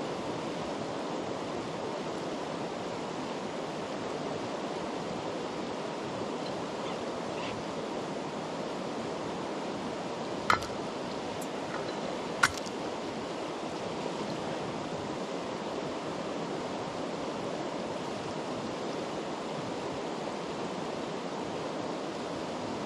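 Steady rushing of a mountain river flowing over stones. About ten seconds in, two sharp knocks sound about two seconds apart.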